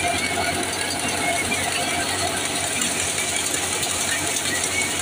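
Tractor-driven wheat thresher running steadily under load while wheat is fed into it: a dense, even mechanical noise from the drum and the tractor engine together.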